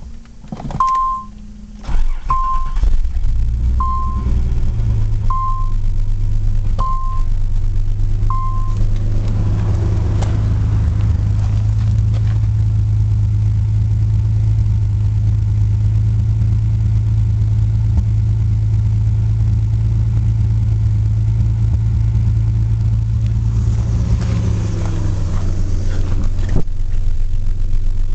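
A 1987 Nissan 300ZX's 3.0-litre VG30 V6 is cranked and catches within the first couple of seconds, then idles steadily on its stock power transistor ignition unit. A warning chime dings six times, evenly spaced, over the first eight seconds or so.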